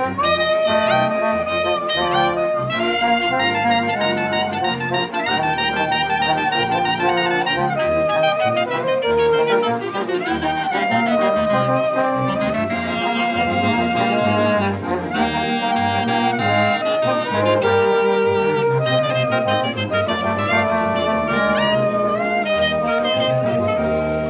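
Small ensemble of violin, clarinet, saxophone, tuba, accordion and trombone playing a hymn together, with sustained melodic lines over a steady bass.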